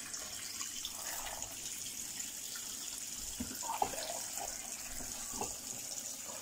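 Kitchen tap running steadily into a stainless-steel pot of chicken and vegetables in the sink, filling it with water. A few faint knocks in the middle as the chicken is moved about in the pot.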